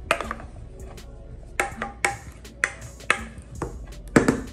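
A spatula scraping and knocking against the rim of a stainless steel mixing bowl while thick cream cheese batter is scraped out. There are several sharp metallic clinks, the loudest cluster near the end.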